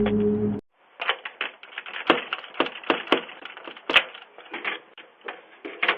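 A steady droning tone cuts off abruptly about half a second in, followed by a run of irregular clicks and knocks, several a second.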